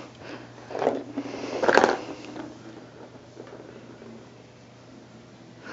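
Cats pawing and scratching at toys and fabric under an upturned ottoman: two short scratchy rustles, the louder about two seconds in, over a faint steady hum.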